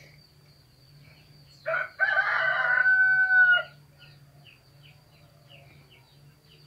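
A rooster crowing once, a call about two seconds long starting roughly two seconds in, with faint small-bird chirps around it.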